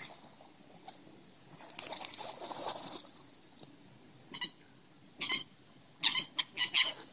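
Dry leaves and twigs rustling and crunching in short, crackly bursts. The bursts come closer together toward the end.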